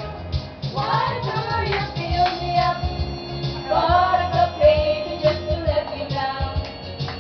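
Group of women singing karaoke together into handheld microphones over a recorded backing track with a steady beat.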